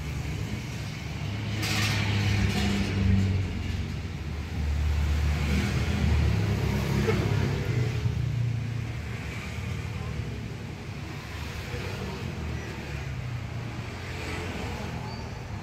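Low rumble of a motor vehicle engine that swells and fades twice, with a short knock about two seconds in.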